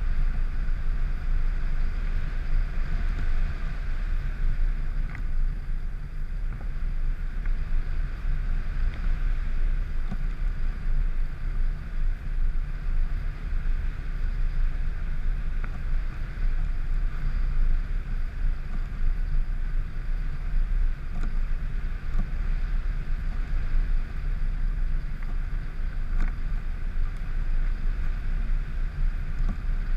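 Wind rushing over the microphone of a camera riding on a small aircraft in flight: a steady rumbling roar with a constant, even drone above it.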